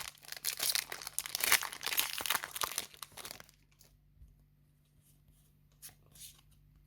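Foil trading-card booster pack wrapper being torn open and crinkled in the hands, a dense crackling that stops about three and a half seconds in, followed by a few faint ticks of cards being handled.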